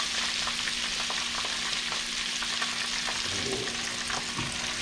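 Sliced onions and garlic sizzling in butter in a stainless steel skillet: a steady frying hiss with fine crackles. Near the end, oyster mushrooms are added to the pan by hand.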